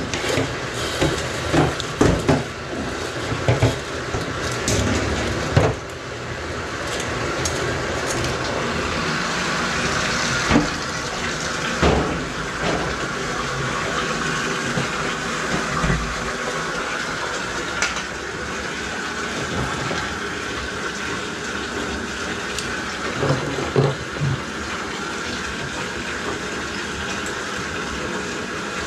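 Electric drain-cleaning machine running, its cable spinning in a drain line clogged with lint and grease. A few clanks and knocks of the cable being handled in the first several seconds, then a steady running noise.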